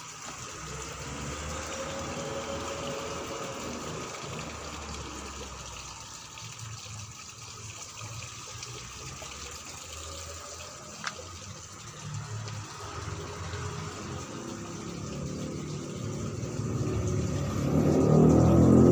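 A small engine running steadily, growing much louder near the end, with one sharp click about eleven seconds in.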